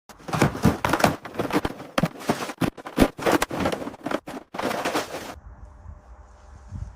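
Hard objects clattering and crashing in a rapid, irregular run of knocks for about five seconds, then stopping suddenly and leaving only a faint hiss.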